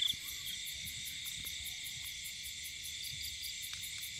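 Night chorus of crickets and other insects in a rice field: a steady high-pitched trilling, with a short louder buzz at the very start and a few faint ticks.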